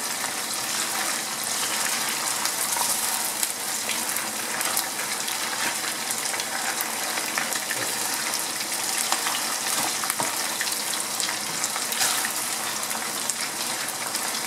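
Chicken pieces frying in hot oil in a non-stick wok, a steady sizzle, with occasional clicks and scrapes of a plastic spatula turning the pieces.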